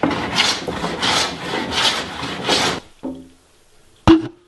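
Hand plane shaving a wooden tabletop board in about five quick push strokes, each a rasping scrape of the blade taking thin shavings on a final smoothing pass, stopping about three seconds in. A sharp knock near the end.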